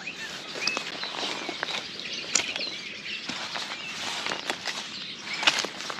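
Dry leaves and pine cones rustling and crackling as a hand rummages through leaf litter between stones, in a string of short irregular clicks with the sharpest about five and a half seconds in. Small birds chirp briefly now and then behind it.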